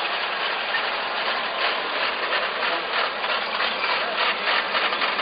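Vintage car engine running, with a rapid, irregular clatter that grows more distinct about a second and a half in.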